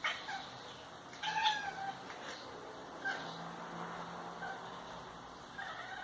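Domestic cat making a string of short chirping, warbling calls, the excited sound she makes on catching sight of a fly, midge or bird; the longest call comes about a second and a half in.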